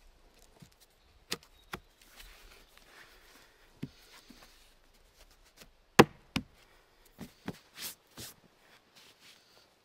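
Wooden sticks and poles knocking and clacking against each other as a raised stick bed is worked on. The knocks are irregular and scattered, with the loudest about six seconds in and a quick run of knocks and rustles around seven to eight seconds.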